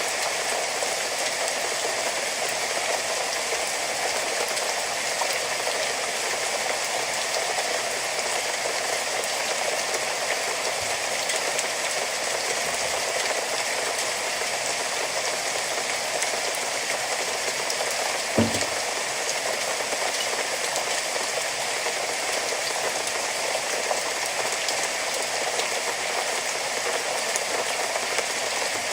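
Steady rain falling, an even hiss with no break, and one short dull thump about two-thirds of the way through.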